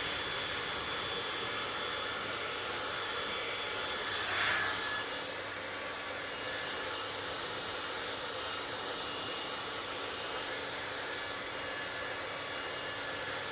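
Hair dryer running steadily: a rush of blowing air with a faint fan whine. It swells briefly about four and a half seconds in.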